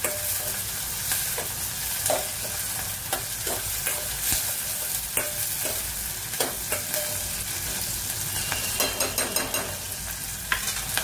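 Whole green chillies frying in hot oil in a metal pot, sizzling steadily while a spoon stirs them. Irregular clicks and scrapes of the spoon against the pot come through the sizzle, with a short patch of quick crackling near the end.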